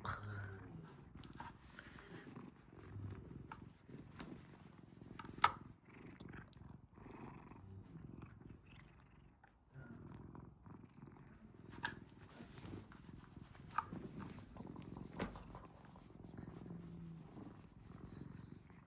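Domestic cat purring steadily close to the microphone, with a few brief clicks, the loudest about five seconds in.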